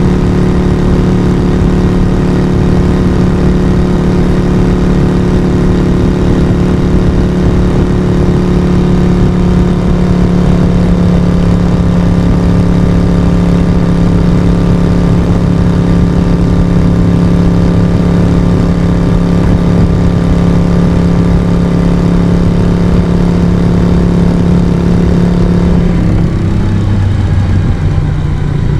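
Moto Guzzi V35's air-cooled transverse V-twin engine and exhaust running steadily under way at a fairly constant engine speed. Near the end the engine speed drops sharply.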